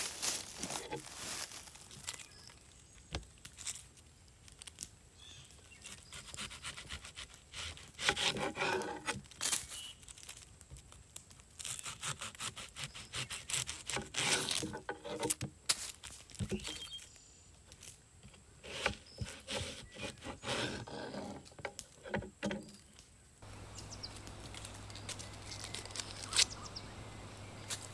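A knife cutting a yellow onion on a wooden cutting board and fingers peeling off its dry, papery skin: irregular scrapes, rustles and sharp taps of the blade on the wood. A steady low hum comes in near the end.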